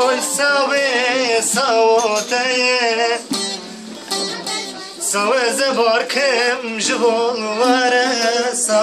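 A man singing a Turkish folk song in a wavering, ornamented voice, with a plucked string instrument playing along. There is a short break between phrases partway through.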